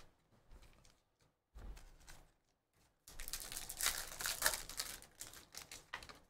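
Trading-card packs and cards being handled: a few faint rustles, then from about three seconds in a dense run of quick crinkles and clicks of wrapper and card stock.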